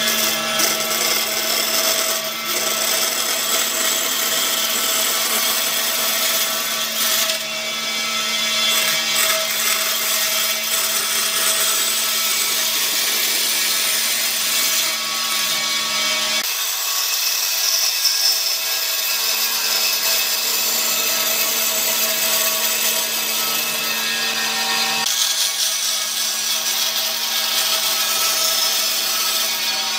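Band saw running and cutting through a thick wooden board: a steady motor hum under the continuous hiss and rasp of the blade in the wood. The low hum falls away for several seconds past the middle, then returns.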